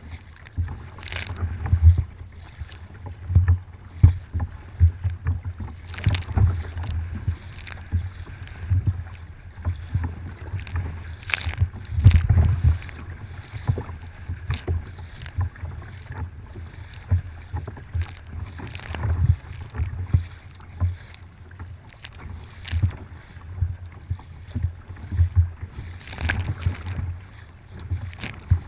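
Choppy water slapping and splashing against a kayak's hull, with spray striking the deck-mounted camera in irregular splashes. Wind buffets the microphone in uneven low gusts throughout.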